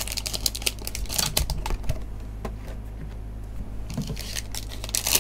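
Cardboard trading-card hobby box and foil card packs being handled: packs slid out of the box and set down on a desk. There are scattered small clicks, taps and crinkles, thick at first, sparse through the middle and picking up again near the end.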